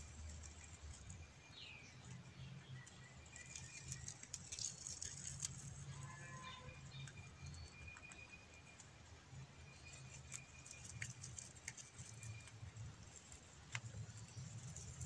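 A rabbit nibbling leaves: faint, scattered crunching and rustling clicks over a quiet background with a low rumble and a few thin, high chirps.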